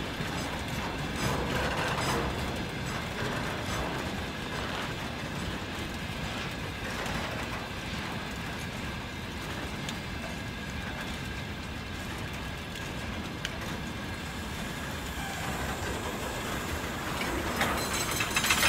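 Freight train of open gondola wagons rolling past, its steel wheels running over the rails with a steady rumble and clatter. The noise grows louder and brighter near the end.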